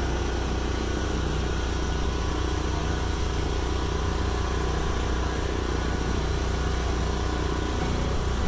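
Steady low drone of a purse-seine fishing boat's engines and deck machinery running at a constant level during net hauling.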